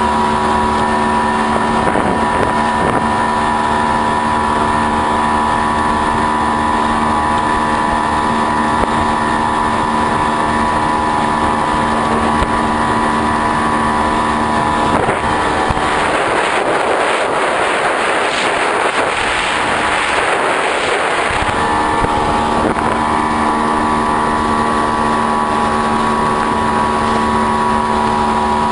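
Motorboat engine running at a steady pitch, with wind and water noise. For about five seconds past the middle the engine tone gives way to a rushing noise, then returns.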